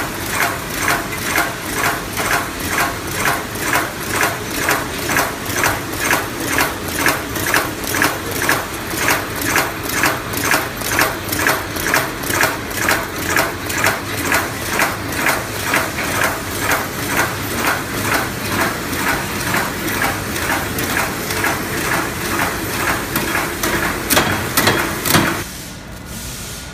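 Horizontal flow-wrap (pillow) packing machine running, its sealing and cutting action beating evenly at about two strokes a second, matching a set speed of 120 packs a minute. Near the end the machine stops, leaving a faint steady tone.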